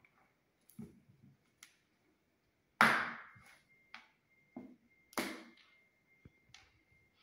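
Handling noise from a mobile phone over a tabletop: two sharp knocks with short fading tails, about three and five seconds in, among lighter clicks and taps.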